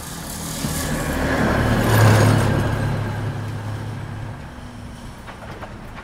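Tram passing by: the rumble and rail noise build to a peak about two seconds in, then fade away, over a steady low hum.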